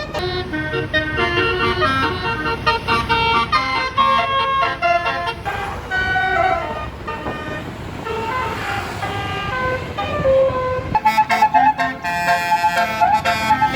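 A bus's basuri telolet horn, a multi-trumpet musical air horn, playing a quick stepped melody over engine and traffic rumble. A louder horn tune takes over about eleven seconds in.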